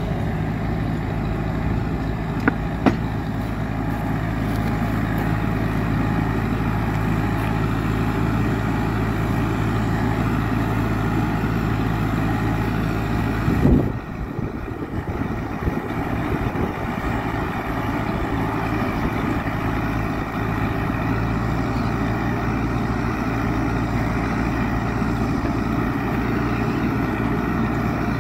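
A farm tractor's engine running steadily while it drags a land leveler with a roller across dry, dusty soil. The sound briefly swells, then drops and changes about halfway through.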